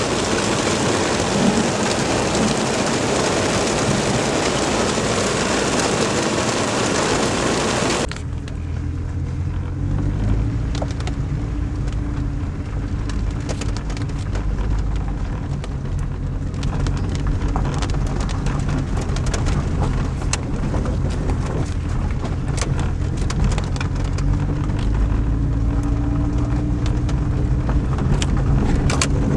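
Heavy rain pelting down as a dense, steady hiss that cuts off abruptly about eight seconds in. After that a car engine runs low and steady, with scattered raindrops ticking and the engine note rising slightly near the end.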